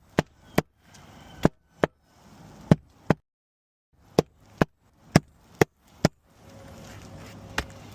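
A hammer striking roofing nails into asphalt shingles: sharp blows, mostly in quick pairs, about eleven in all, with a brief gap near the middle.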